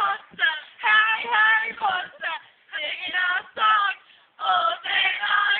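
High-pitched voice vocalising in short, singsong phrases with gliding pitch.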